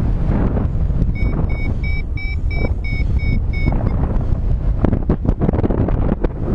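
Strong wind buffeting the microphone in paraglider flight. From about one to four seconds in, a run of about nine short high beeps, roughly three a second, typical of a flight variometer signalling lift. A few sharp crackles come about five seconds in.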